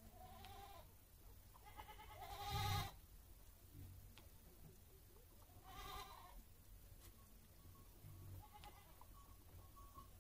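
Goat bleating four times. The second bleat, about two seconds in, is the longest and loudest, and the last one is faint.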